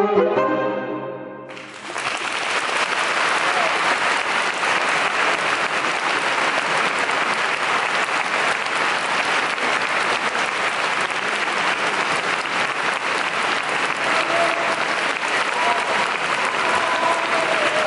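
A saxophone quartet, led by a baritone saxophone, ends a piece on a held chord that stops about a second and a half in. Then an audience applauds steadily.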